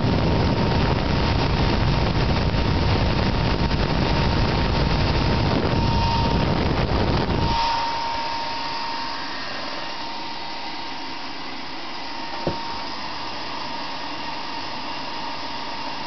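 Dell Optiplex GX280 CPU fan running flat out: a loud rush of air like a jet airplane taking off, with a steady high whine. About halfway through, the deep part of the rush drops away and it goes quieter while the whine carries on. The fan keeps ramping up and won't slow down even with everything shut down.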